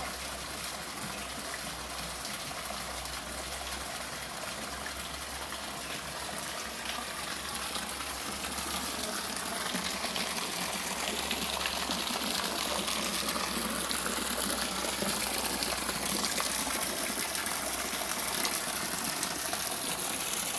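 Rainwater gushing in a steady rush of pouring water, growing louder about eight seconds in.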